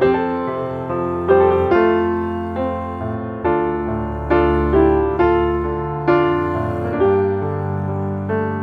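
Background piano music: a slow melody of notes struck about once a second, each fading away, over held low bass notes.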